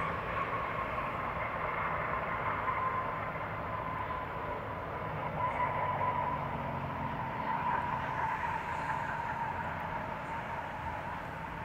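Airbus A320's CFM56 jet engines during the landing rollout on the runway: a steady whine over a broad rumble, slowly fading as the airliner slows.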